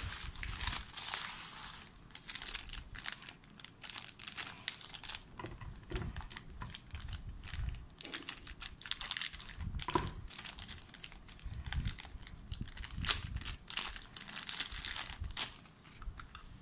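Plastic packaging crinkling and rustling in irregular bursts of short crackles as bubble wrap and a small plastic bag are handled and cut open with scissors.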